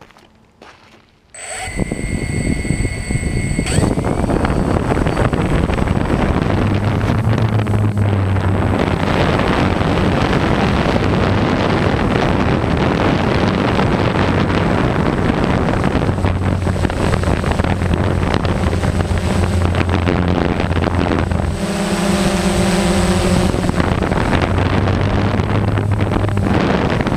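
Small quadcopter drone's motors and propellers starting about a second and a half in with a brief high whine, then running steadily in flight, heard close through the onboard camera's microphone with wind noise.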